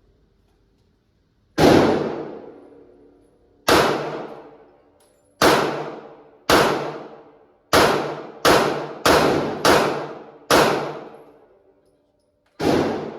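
Gunfire: ten single shots at an uneven pace, coming quicker in the middle of the string, each one trailing off over about a second.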